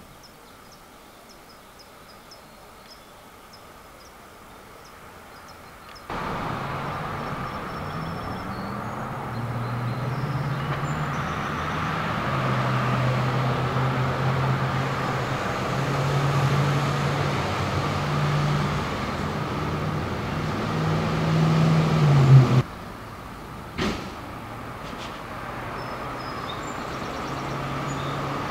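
Faint insects ticking, then a sudden cut to a truck engine running loudly over traffic noise, its pitch stepping up and down and rising just before it cuts off abruptly. After that, a quieter steady traffic hum with one sharp click.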